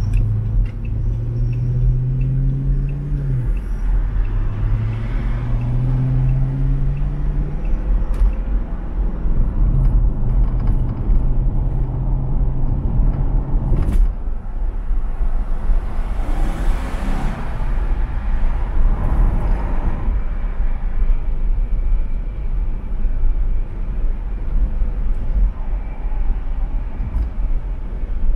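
Car engine and road rumble heard from inside the cabin while driving on a highway. In the first part the engine note climbs, drops back twice as the transmission shifts up, then holds steady; around the middle there is a sharp click and a brief swell of rushing noise, then steady road rumble.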